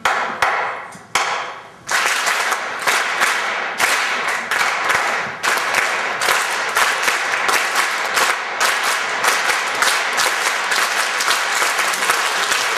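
Theatre audience clapping on a conductor's cues: a few short bursts that stop and start again, then sustained clapping from about two seconds in, with sharp accents a few times a second.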